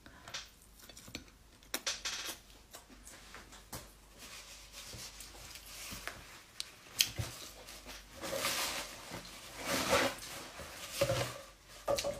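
A person eating rice by hand: chewing, with scattered clicks and scrapes of fingers and food against a plate.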